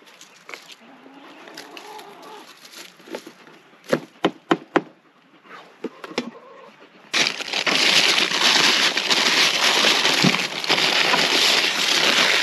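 Four quick, sharp knocks, then about seven seconds in a loud, continuous crinkling of a paper bag being handled close up.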